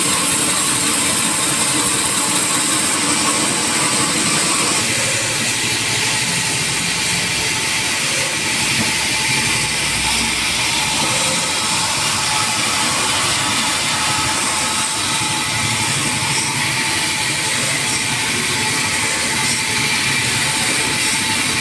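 Sawmill saw and machinery running, a loud steady mechanical noise without pauses.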